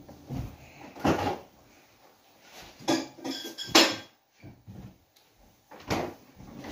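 Dishes and cutlery being cleared away: about five separate knocks and clinks, the loudest just past halfway, one with a short ringing about three seconds in.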